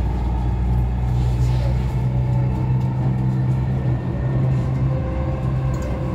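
Dubai Metro Red Line train running on its elevated track, heard from inside the carriage: a steady low rumble with a hum.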